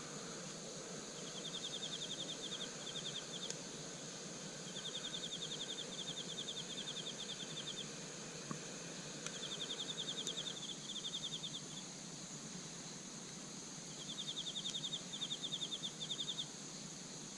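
Insects singing: a steady high-pitched chorus, with a nearer insect giving fast, evenly pulsed trills in four bouts of one to three seconds each.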